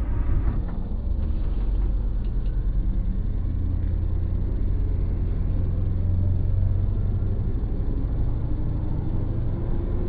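A hypercar accelerating hard from a standing start, heard as a heavy, steady low rumble.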